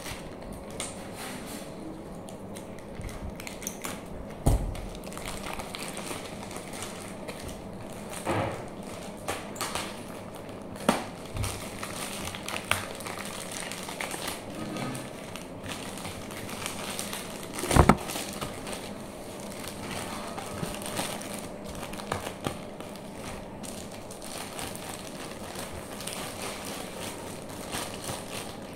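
Clear plastic wrapping being torn and pulled off a stack of paperback textbooks: irregular crinkling and crackling of the plastic, with a few louder knocks as the books are handled, the loudest about two thirds of the way through.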